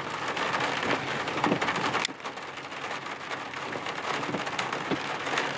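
Rain falling on a car's windshield and roof, heard from inside the car as an even hiss of fine ticks that drops a little about two seconds in, with the windshield wiper sweeping across the glass.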